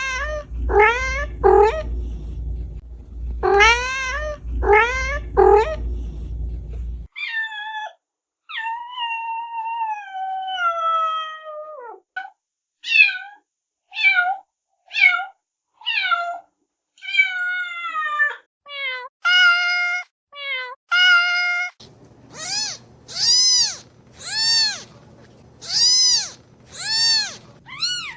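Domestic cats meowing in a string of separate recordings. Short repeated meows open it. A long drawn-out meow falls in pitch around the middle, and a run of short meows follows. Near the end comes a steady series of rising-and-falling meows, about one a second.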